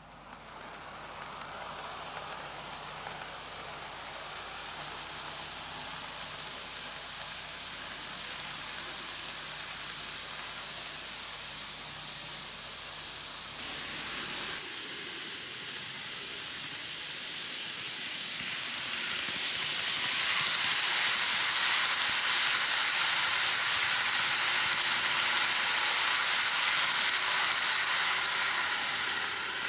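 N-gauge Keikyu New 1000 series model train running on plastic track: a steady whirring, hissing rolling noise from its wheels on the rails and its motor, growing louder as the train comes closer. About 14 seconds in the sound changes abruptly. It then swells to its loudest as the train runs past close by.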